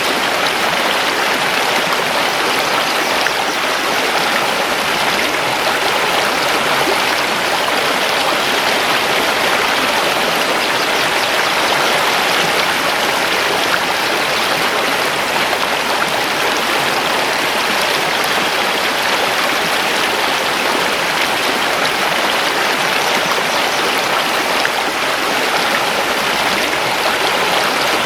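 Mountain river rushing over stones: a steady, even water noise that does not change.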